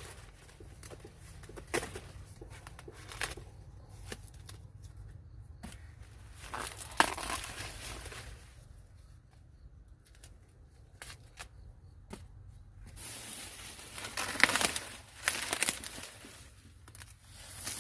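Intermittent rustling and tearing, like dry leaves or husks being handled, with scattered sharp clicks and a low steady hum underneath.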